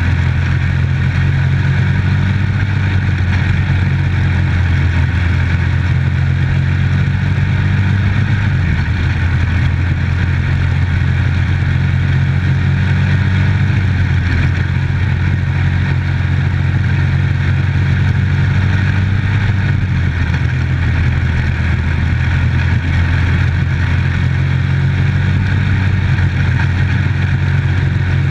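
Microstock dirt track race car's engine running hard at a nearly steady pitch, heard from inside the car's cockpit, with a brief slight dip in pitch about nine seconds in.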